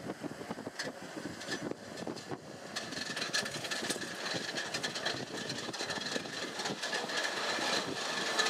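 Paris Métro train running, a dense rattle of clicks with a steady high whine, growing louder from about three seconds in.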